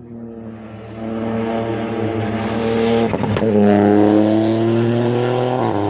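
Rally car engine approaching under hard acceleration and growing louder. About three seconds in there is a gear change, after which the revs climb again, and there is another shift near the end.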